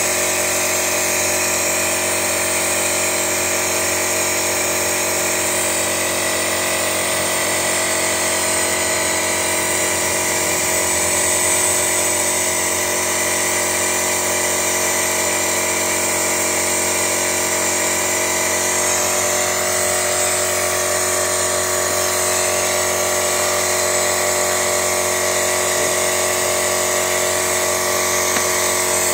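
A small motor-driven machine running steadily, a high whine with many unchanging tones over a hiss.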